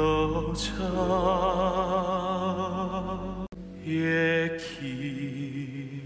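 A man singing a slow song, holding long notes with wide vibrato over instrumental accompaniment. The sound cuts out for an instant about three and a half seconds in, then he takes up a new phrase.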